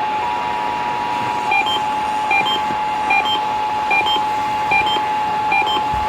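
Emergency Alert System attention signal: a steady two-tone alert that thins to a single steady tone after about a second and a half. From then on, a repeating pair of higher beeps sounds about every 0.8 s over it.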